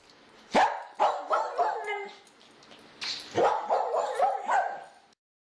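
A dog barking and yipping in several short, sharp calls, cut off abruptly about five seconds in.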